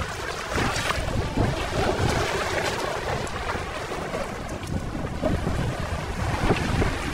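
Wind buffeting the microphone over shallow seawater washing and lapping among shoreline boulders.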